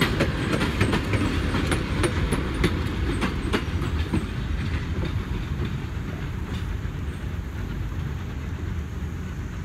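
Steel wheels of passenger coaches clicking over the rail joints as the train rolls past, over a steady rumble. The clicks thin out after about four seconds as the last car moves away, and the rumble slowly fades.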